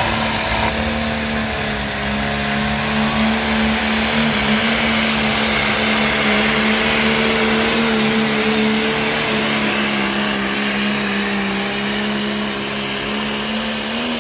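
John Deere 6030 pro stock pulling tractor's turbocharged diesel running flat out under full load of the pulling sled: a loud steady engine note with a high whistle rising over the first couple of seconds. The engine note sags a little past the middle and climbs again near the end.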